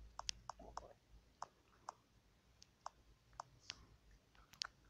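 Phone touchscreen keyboard clicking as letters are typed: about a dozen short, separate key-press clicks at an uneven typing pace.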